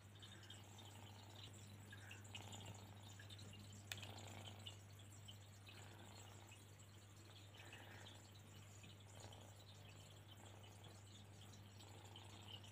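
Faint home aquarium filter running: a steady low hum with soft water dripping and trickling.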